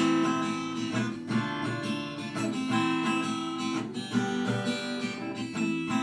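Acoustic guitar strummed on its own, a steady run of chords with no singing.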